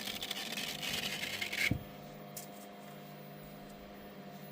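Rustling and scraping as magnets are pulled off a 3D printer's magnetic build plate and the printed fabric is handled, ending in a single knock a little under two seconds in. After that only a steady low hum remains.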